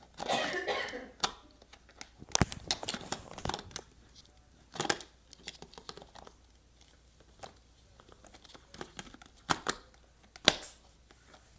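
Scattered clicks, knocks and short rustles of a stand mixer's parts being handled, with no motor running.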